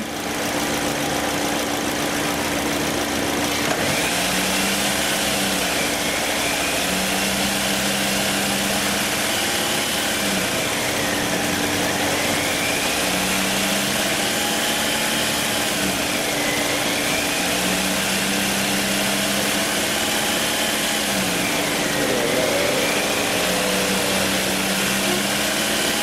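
Car engine held at a fast idle of about 2,000 rpm with its mass airflow sensor unplugged, running in the computer's default fuel mode. The revs waver, dipping and coming back up every few seconds as the throttle is held by hand.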